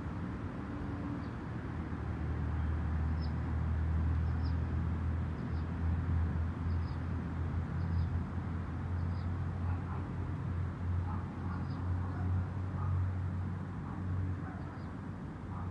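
Dodge Challenger Scat Pack's 6.4-litre HEMI V8, straight-piped with catless mid-pipes and no mufflers or resonators, idling with a steady low drone that swells slightly about two seconds in. Small birds chirp briefly every second or so above it.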